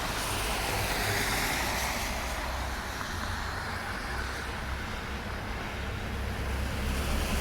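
Street traffic passing on a snowy city street, tyres hissing over the wet road, with a low rumble of wind on the microphone.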